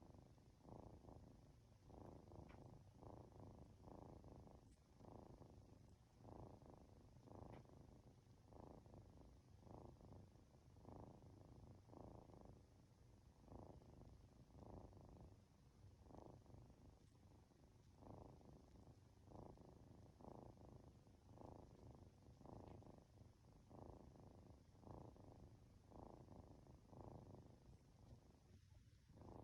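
Norwegian Forest Cat kitten purring steadily while being stroked, the purr pulsing about twice a second with its breathing in and out.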